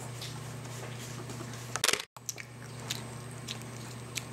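A small child chewing a soft sandwich, with faint wet mouth clicks over a steady low hum. A short cluster of louder clicks comes just before two seconds in, then the sound cuts out for a moment and the hum returns.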